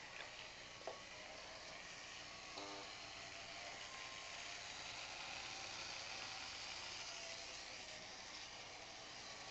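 Faint steady whir and hiss of small model trolleybus motors running on the layout, with a brief short squeak about two and a half seconds in.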